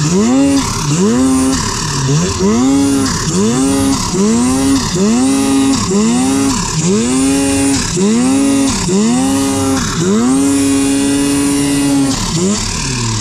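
Turbocharged snowmobile engine revved in quick repeated throttle bursts, rising and falling about three times every two seconds, as the sled is worked up through deep powder out of a creek bottom. Near the end it holds at steady high revs for about two seconds, then drops off.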